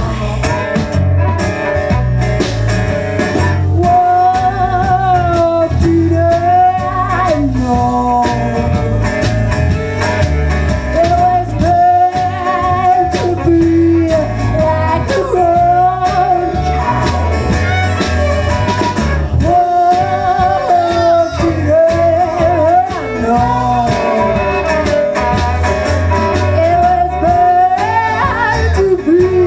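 Live folk-rock band playing: acoustic guitar, electric bass and percussion under a bowed violin melody with vibrato.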